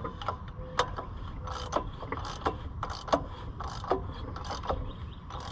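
Socket ratchet clicking in short, uneven strokes, about one or two clicks a second, as a 1980 Harley-Davidson golf cart engine is turned over by hand. The engine is stiff from sitting dry.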